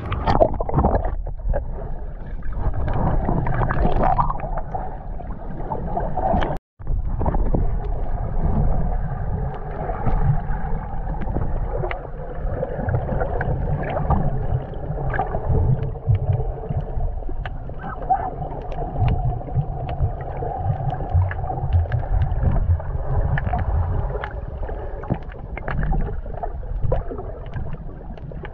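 Muffled underwater rumble and water sloshing picked up by a camera held below the surface while snorkeling, with scattered small clicks and crackles. The sound cuts out completely for a moment about six and a half seconds in.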